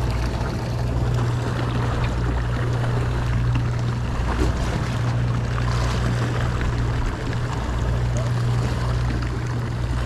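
A sportfishing boat's engine humming steadily at a low pitch, with a wash of water and wind noise over it.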